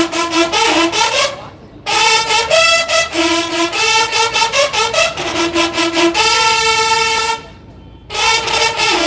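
Mexican banda de guerra of bugles and snare drums playing a march: bugle phrases over rapid drum strokes. The band stops briefly twice, about a second and a half in and again about seven and a half seconds in.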